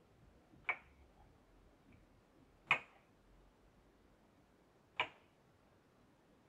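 Three short, sharp clicks at uneven intervals of about two seconds, with near silence between them.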